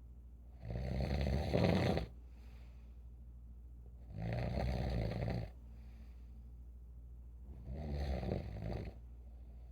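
An elderly person snoring in sleep: three long, rasping snores, each lasting over a second, about three and a half seconds apart. A steady low hum runs underneath.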